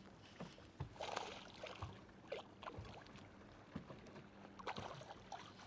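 Faint lake water lapping against a fishing boat, with a low steady hum underneath and a couple of brief swishes.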